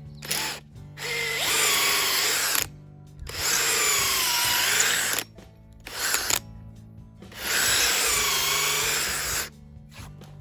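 Power drill boring holes into a wooden stump in three runs of about two seconds each, with two short blips between them. Its pitch sags as the bit loads up in the wood and climbs back before each run stops.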